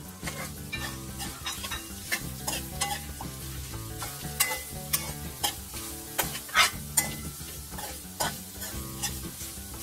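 Spatula scraping and knocking against a wok in quick, irregular strokes, stir-frying ground pork with freshly added diced carrot, potato and onion, over the sizzle of the frying.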